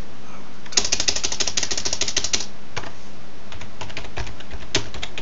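Computer keyboard typing: a fast run of keystrokes about a second in, then several single key presses spaced out.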